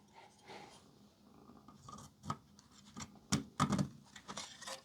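Small scrapes, rubs and sharp clicks of a printed circuit board being handled and fitted onto a board stack, with a few louder taps in the second half.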